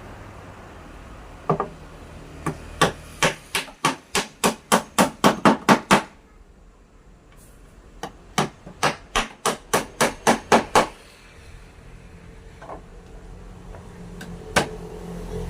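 Hammer striking wood in two runs of quick, even blows. The first run speeds up to about four or five blows a second, and the second is a little slower, with a few single knocks before and after.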